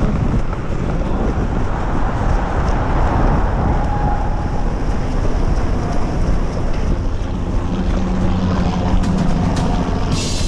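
Steady rumbling wind noise on the microphone of a GoPro carried by a runner, with sharp short ticks starting near the end.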